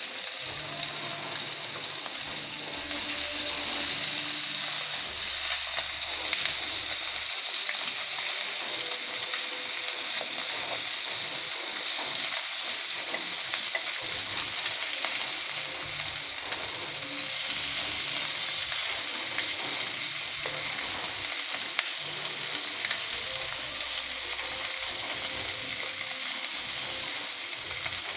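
Small whole trey riel fish frying in hot oil in a skillet, a steady sizzle with a few sharp ticks along the way.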